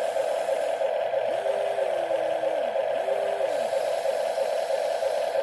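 Small electric motors of a toy RC excavator whining: a steady high whine runs throughout, and twice a second motor starts up, holds its pitch for a moment and winds down as an arm or boom moves.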